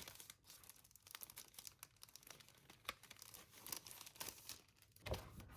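Faint crinkling and rustling of paper being unwrapped and handled, with a louder rustle near the end.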